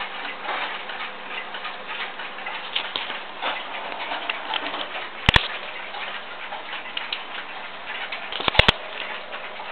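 Haller & Dorsch grandfather clock ticking, with a sharp louder click about halfway through and two more in quick succession near the end.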